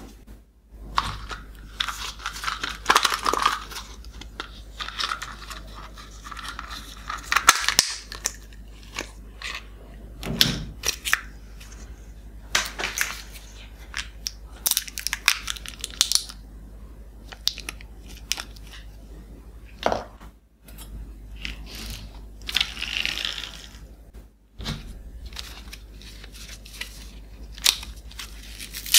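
Hands crinkling and tearing plastic and foil candy wrappers and opening a cardboard chocolate carton: irregular bursts of crackly rustling with short pauses between them.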